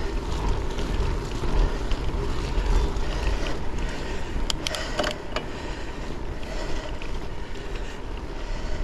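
Wind rushing over an action camera's microphone on a moving bicycle, a steady low rumble of air and road noise, with a few faint clicks about halfway through.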